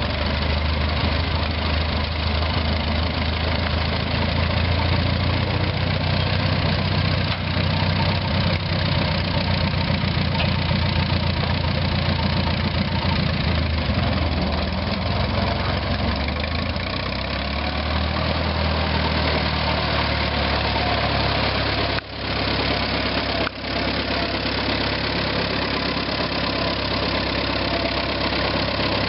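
Minneapolis Moline ZTU tractor's four-cylinder gas engine running at a low, steady speed while the tractor is driven slowly around.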